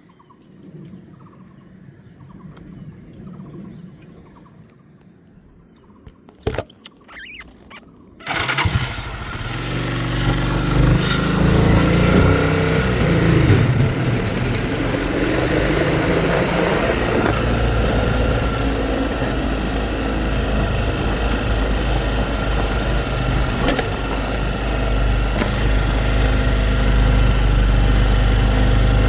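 A few clicks, then about eight seconds in a motor vehicle's engine and travel noise comes in suddenly and runs on steadily and loudly.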